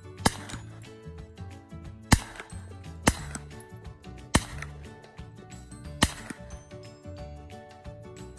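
Kel-Tec Sub-2000 carbine in .40 S&W firing five single shots at an uneven pace, one to two seconds apart.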